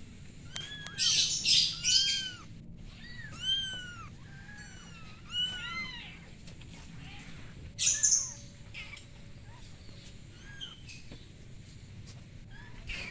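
Young kittens mewing: a string of short, high, arched cries, several voices overlapping, with a few short loud bursts of noise about a second in and about eight seconds in.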